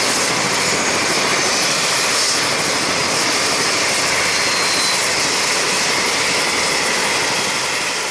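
JMSDF SH-60J helicopter running on the ground with its main rotor turning: a steady turbine and rotor noise with a thin high whine, fading out near the end.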